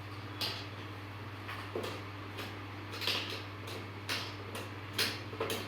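Irregular clicks and knocks of plastic ride-on toy car parts being handled during assembly, over a steady low hum.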